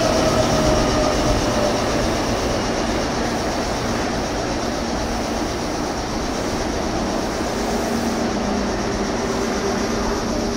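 Meitetsu electric train running slowly through the station, its motor whine falling in pitch over the first couple of seconds as it slows, over a steady rumble of wheels on rail.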